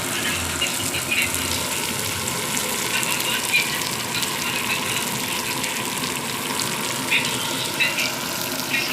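Fish frying in hot oil: a steady sizzle with fine crackling.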